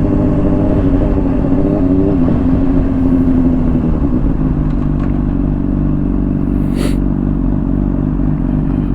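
Honda CBR600RR inline-four through a Hotbodies Stinger slip-on exhaust, pulling in gear with its pitch rising slightly, a brief step about two seconds in, then settling to a steadier, lower note, over a constant low rumble of wind and road.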